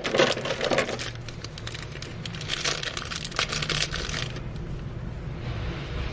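Plastic and paper packaging being handled and pulled apart during an unboxing: irregular crinkling and crackling with small clicks, busiest in the first second and again around the middle.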